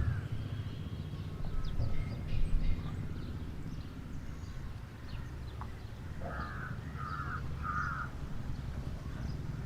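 A bird calling three times in quick succession, about two-thirds of the way through, over a steady low rumble, with faint scattered chirps.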